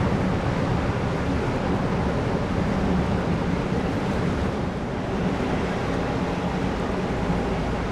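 Steady low hum of a large passenger ferry's engines running, with a rushing hiss over it.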